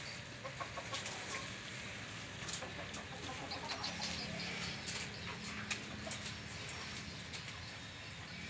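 Chickens clucking in short calls, with scattered small clicks and rustles.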